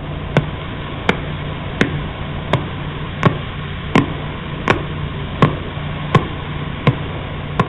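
Radio signal of a pulsar turned into sound: a steady hiss with sharp, evenly spaced clicks a little under one and a half per second, each click one pulse from the spinning neutron star's beam.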